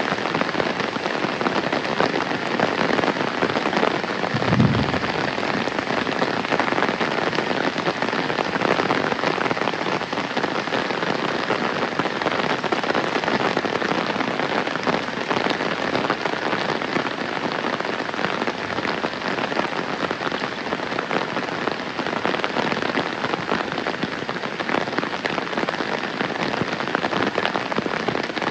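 Heavy rain pouring down steadily in a dense, even hiss. A brief low thump comes about four and a half seconds in.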